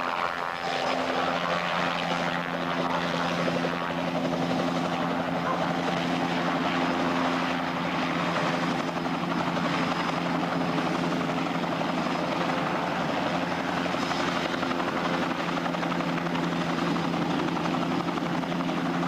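Light helicopter coming in low and descending to land, its rotor and engine running with a steady, unbroken sound and a steady whine.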